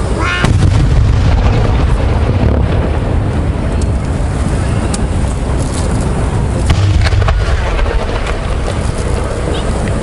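Aerial fireworks going off in a steady barrage: deep booms rolling into one another, with sharp cracks now and then.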